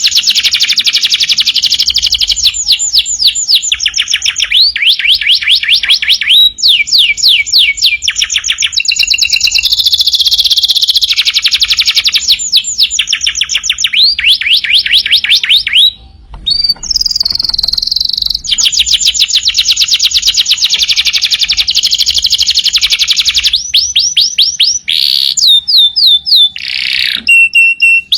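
Domestic canary singing continuously in long, rapid trills of repeated high notes, switching from one trill to the next every second or two, with a brief break about halfway through.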